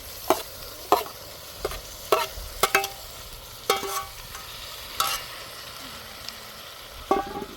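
About eight sharp knocks at uneven intervals, hard objects striking one another, each leaving a short ring.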